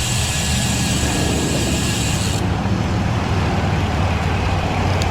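Wind rushing over the GoPro microphone and tyres running on pavement as a road bike is ridden at speed, a steady rumbling rush.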